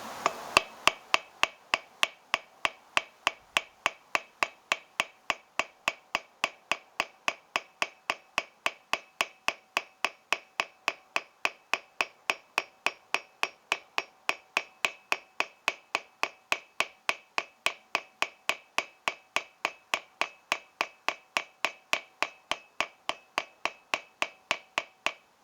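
Hammer striking a silver bar on an anvil, cold-forging it down to size in its final drawing-out pass. Steady, even blows about three a second, each with a short metallic ring.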